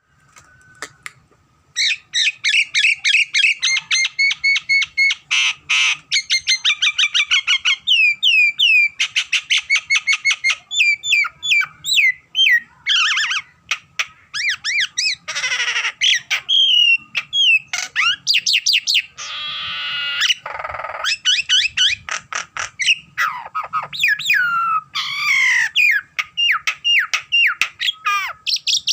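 Nias hill myna calling almost without pause: fast strings of short whistled and gliding notes, several a second, broken now and then by longer harsh squawks. This is the non-stop chatter that bird keepers call 'gacor'.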